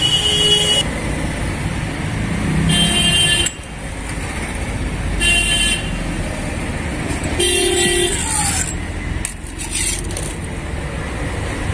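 Street traffic with vehicle horns honking four times, each honk under a second long, over a steady low rumble of passing engines.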